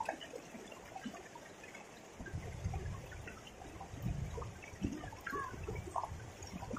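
Faint river water trickling, with scattered small ticks and splashes. A low rumble starts about two seconds in and comes and goes.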